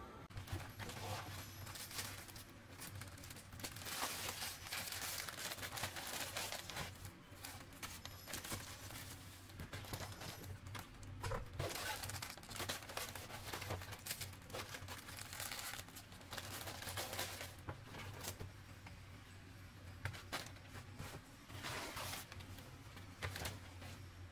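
Plastic bags and grocery wrapping crinkling and rustling in irregular bursts as groceries are handled and lifted out of a tote bag, over a steady low hum.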